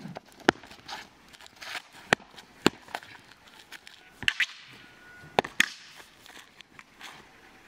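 A series of sharp slaps and knocks, about eight over several seconds, from feet landing and stamping on concrete and a Shaolin staff striking and being snapped through the air during a staff form, with softer swishes between.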